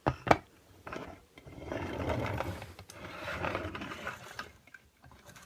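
Chunky plastic toy car rolled across a surface, its wheels rumbling and rattling for a few seconds, after two sharp clicks of plastic being handled.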